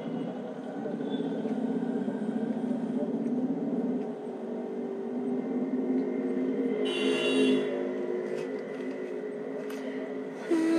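Steady hum of a car heard from inside its cabin, with a brief high-pitched sound about seven seconds in.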